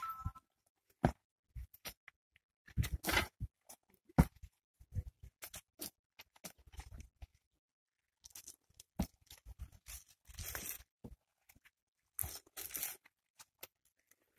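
Irregular crunching and scraping: a spade working dry soil and flower wreaths being set down on a freshly filled grave.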